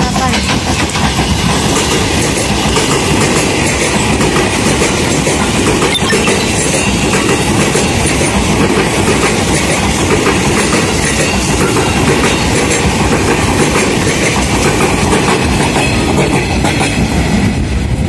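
JR 205 series electric commuter train passing close by at speed: a steady loud rumble, with the wheels clattering over the rails.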